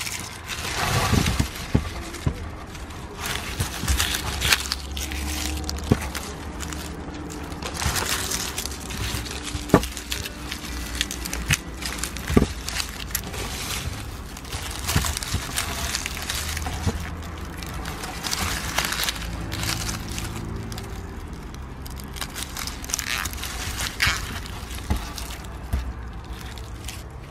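Dry, papery onion skins and dried onion tops rustling and crackling in the hands as the loose outer skins are rubbed off and the onions are gathered into a bunch, with irregular sharp snaps among the rustling.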